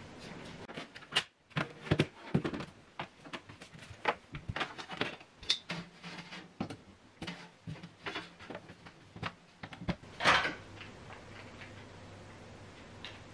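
Irregular clicks, knocks and taps as items and cables are handled, plugged in and set down on a wooden TV stand, with one louder knock about ten seconds in.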